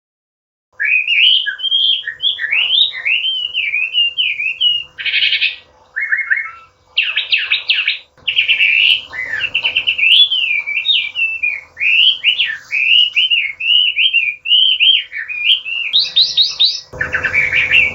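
Chinese hwamei singing a loud, varied song of rapid whistled phrases that sweep up and down, starting about a second in and running on with only short gaps. Near the end it turns into a faster, harsher run of notes. A faint steady hum sits under it.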